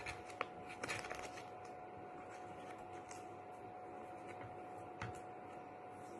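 Fingers pressing and smoothing self-adhesive chalkboard fabric onto an MDF tag: faint rubbing with a few soft clicks and taps in the first second and one more click about five seconds in, over a faint steady hum.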